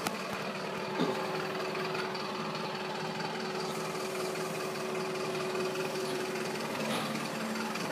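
A machine running steadily with a constant low hum.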